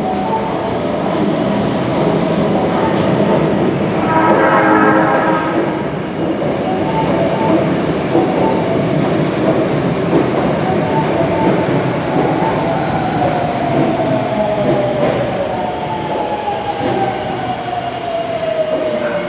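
Tanimachi Line subway train running with a steady rumble of wheels and running gear, with a brief tone about four seconds in. In the last third a motor whine falls steadily in pitch as the train slows.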